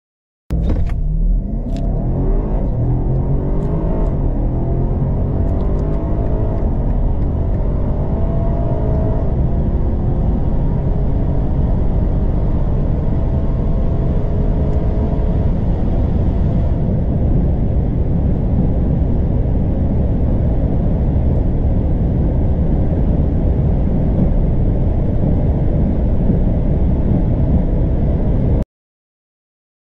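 A car engine accelerating hard at full throttle through the gears. Its pitch climbs and drops back at each upshift, with the shifts coming quickly at first and further apart later. The sound cuts off abruptly near the end.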